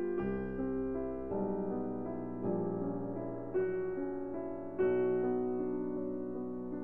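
Background piano music: slow, sustained chords that change about once a second.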